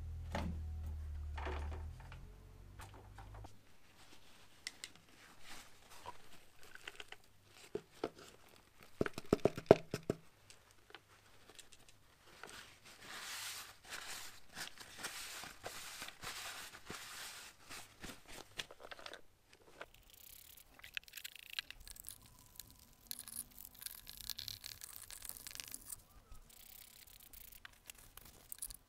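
A rag rubbing and scrubbing the inside of a plastic car airbox housing, with rustling and scraping. There is a sharp clatter of plastic knocks about nine seconds in, a long stretch of steady scrubbing in the middle, and short scattered scrapes near the end.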